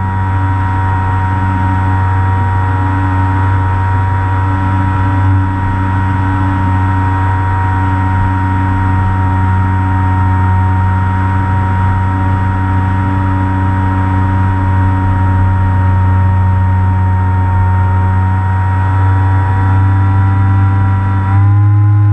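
RC plane's motor and propeller running steadily, heard from a camera on the plane itself, a loud hum with a whine over a rush of air. Near the end the pitch steps up slightly as the throttle is opened.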